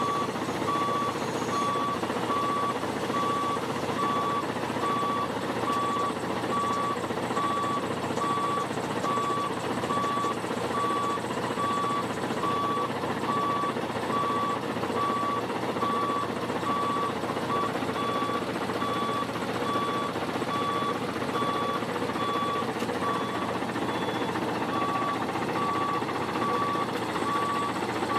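A vehicle's reversing alarm beeping at an even pace over the steady running of its engine.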